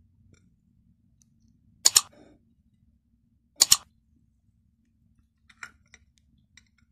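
Mouse-click sound effects of a subscribe-button animation: a sharp double click about two seconds in and another just before four seconds, over a faint low hum. A few faint light ticks follow near the end.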